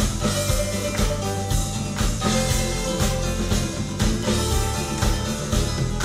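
Recorded music playing through Bowers & Wilkins 703 S3 floor-standing speakers, picked up by room microphones: a funk-rock track with electric guitar over a drum kit's steady beat.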